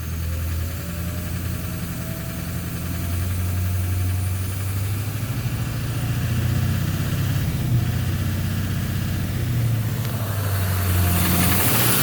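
Duramax LMM 6.6 L V8 turbodiesel running at low revs, with a faint turbo whine slowly rising in pitch over the engine note. This is the engine being checked for an intermittent cold-start knock that the owner suspects may come from the bottom end.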